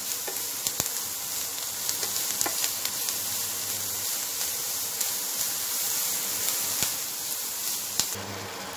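Finely chopped vegetables sautéing in butter in a frying pan, a steady sizzle as a spatula stirs them, with scattered light clicks of the spatula against the pan. The sizzle thins out near the end.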